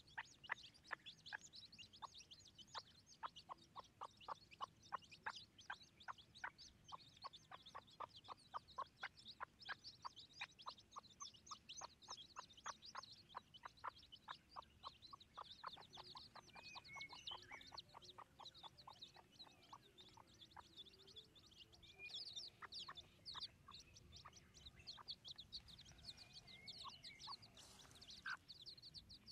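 Faint peeping of young chicks mixed with a hen's soft clucking: a steady, rapid run of short, high calls.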